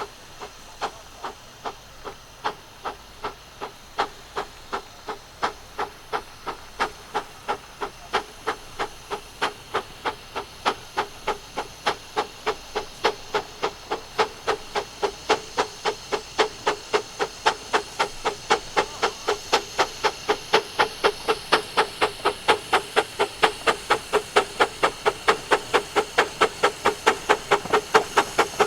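15-inch gauge miniature steam locomotive chuffing, its exhaust beats quickening from about one and a half to about three a second and growing steadily louder as it works harder.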